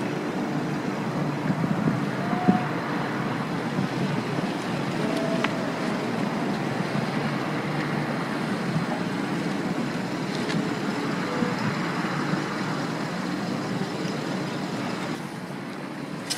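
Steady rushing outdoor background noise, with a few faint brief chirps and ticks.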